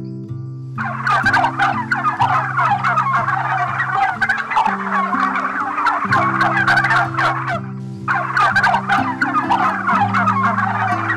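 A flock of birds calling in a dense, noisy chatter, like fowl gobbling, starting about a second in and breaking off briefly near eight seconds. Soft sustained background music plays underneath.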